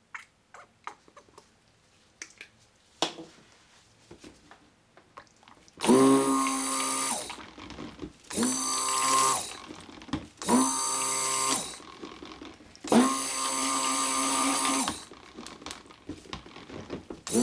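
Electric stick blender run in short bursts, blending soap batter in a plastic measuring cup: four pulses of one to two seconds each, beginning about six seconds in, with another starting right at the end. Before them, a few faint clicks from handling the blender and cup.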